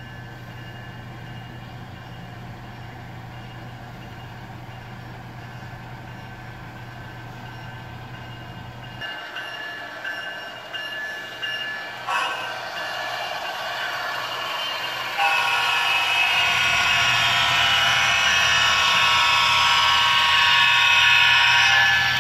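Sound of HO scale model BNSF GE GEVO diesel locomotives: a faint steady hum at first, then a diesel engine and horn sound build up from about nine seconds in. It gets markedly louder a few seconds later as the locomotives come close.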